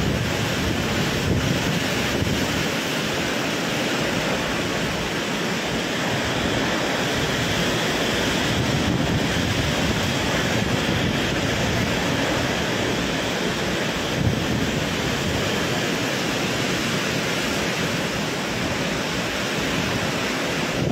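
Super typhoon winds howling with torrential rain, a steady dense rush with wind buffeting the microphone.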